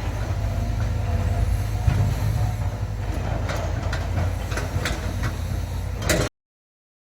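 Heavy construction machine's diesel engine running with a steady low rumble, with several sharp knocks in the second half. The sound cuts off abruptly a little over six seconds in.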